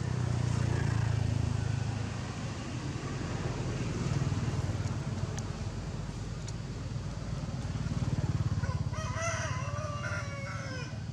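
A rooster crows once near the end, one drawn-out call that rises and falls, over a steady low engine rumble.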